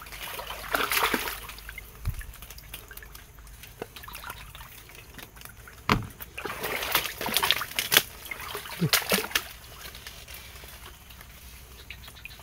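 Shallow swamp water splashing and sloshing in irregular bursts as someone wades through it, with a sharp knock about six seconds in.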